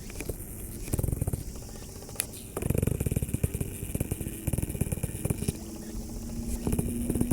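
An engine running with a low, quickly pulsing rumble that grows louder about two and a half seconds in, and a steady hum that sets in near the end.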